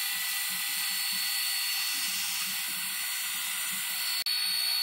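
Steam locomotive #1702 standing in steam, giving off a steady hiss with a thin high whistle-like tone over it. The sound drops out for an instant near the end.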